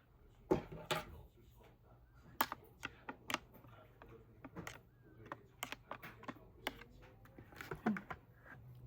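A series of irregular sharp clicks and taps, a dozen or so, the loudest about half a second in and near the end.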